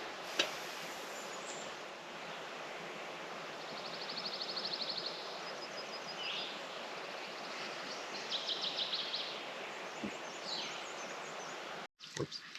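Outdoor ambience: a steady wash of wind and water, with a bird giving two rapid trills and a few short chirps, and a sharp click about half a second in.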